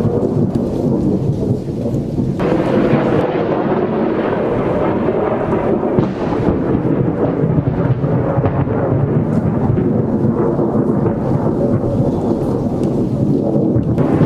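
Long rolling thunder rumbling continuously, swelling suddenly about two seconds in, with rain falling underneath.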